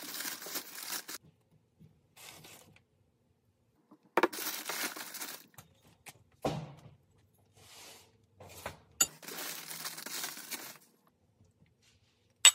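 Thin plastic shopping bags rustling and crinkling in several bursts of a second or so as items are pulled out of them, with a few light knocks and a sharp click near the end as ceramic plates are handled.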